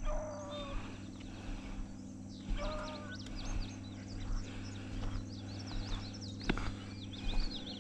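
Beagle baying in the distance: two drawn-out bays, one at the start and one about two and a half seconds in, from a hound working a rabbit's trail.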